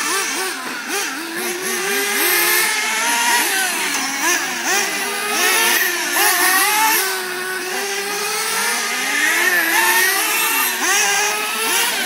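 Nitro engines of 1/8-scale Losi late model RC cars revving on a dirt oval, their high-pitched whine rising and falling over and over as they brake and accelerate through the turns, with several engines overlapping.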